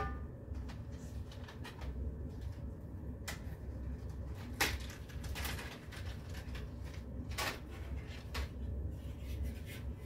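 Scattered light clicks and knocks as small metal screws and black metal bed-frame rails are handled and fitted together, over a steady low hum.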